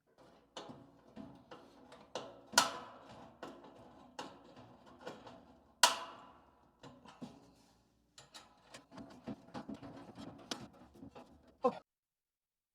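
Metal clinking and knocking from sheet-metal stove pipe and its fittings being handled, with two louder clanks that ring briefly, about 2.5 and 6 seconds in. The sound cuts off suddenly near the end.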